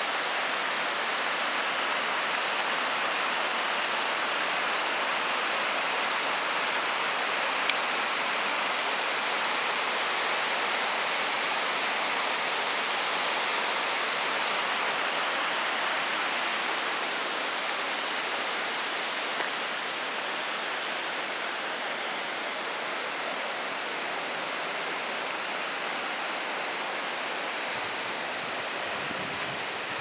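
Mountain waterfall and stream rushing steadily, a constant even noise of falling water that eases a little about halfway through.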